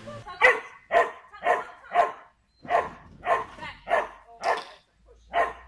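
Dog barking repeatedly, about two barks a second: nine sharp barks in all, broken by two short pauses.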